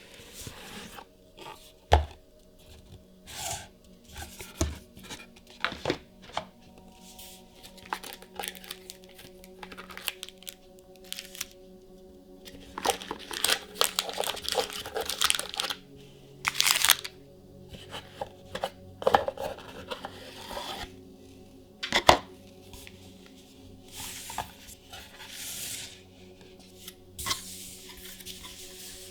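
Gift box packaging being torn open and handled: irregular tearing and rustling, busiest in the middle, with a few sharp clicks of the box, the loudest about two seconds in and near 22 seconds.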